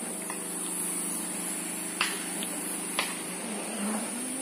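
Diesel engine running steadily, a constant hum under a steady high hiss, with two sharp knocks about a second apart in the middle.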